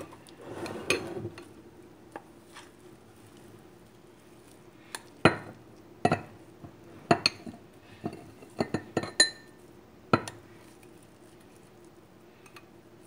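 A spoon scraping and clinking against a drinking glass and a mixing bowl as thick muffin batter is scooped into the glass. There is a short scrape about a second in, then a run of sharp clinks from about five to ten seconds in, a few of them ringing briefly like struck glass.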